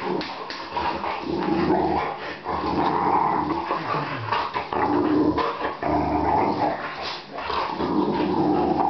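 Two boxer dogs play-growling while mouthing at a person, a series of growls each a second or two long, with scuffling and snuffling between them.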